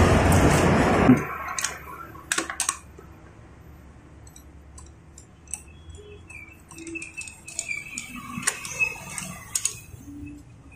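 A loud rushing noise stops abruptly about a second in. After it, a socket wrench works on a wheel's lug nuts: scattered metallic clicks and light ticking.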